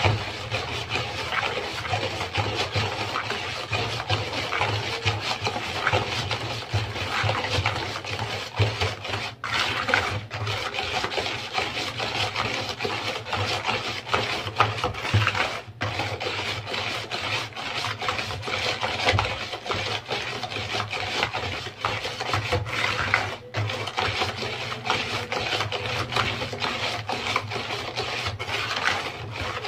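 Hand-held wire balloon whisk beating thin cake batter in a plastic bowl: rapid, continuous scraping and swishing strokes against the bowl, with a few momentary breaks.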